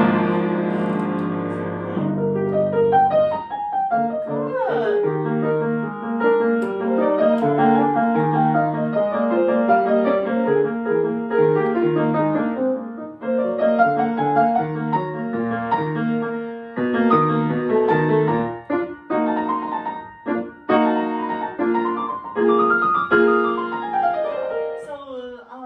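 Grand piano being played: a loud opening chord, then flowing runs of notes rising and falling over steadily repeated lower notes. The playing stops near the end.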